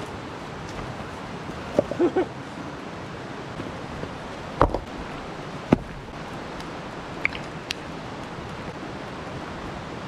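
Steady rush of flowing water, with a few sharp wooden knocks and thuds as a dry dead log is handled and set down across rocks. The loudest two knocks come about halfway through.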